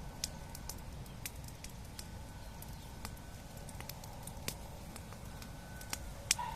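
Wood bonfire crackling, with irregular sharp pops and snaps over a low steady rumble.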